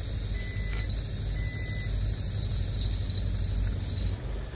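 Outdoor background noise: a steady low rumble under a high hiss, the hiss dropping away about four seconds in.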